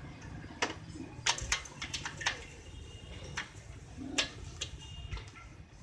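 Hand tools clinking and tapping on the steel of a red trolley floor jack under repair: about ten irregular, sharp metallic clicks, some with a short ring.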